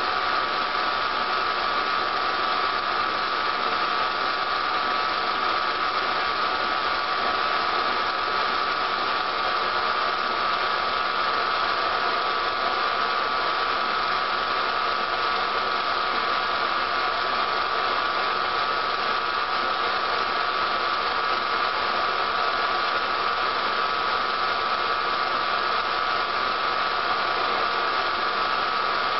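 Steady, unchanging hiss and hum with no distinct sound events: the background noise of a silent film's transfer.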